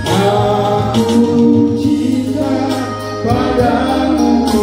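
A man sings a slow song with long held notes, amplified through a microphone and PA speakers, over a backing of steady bass notes.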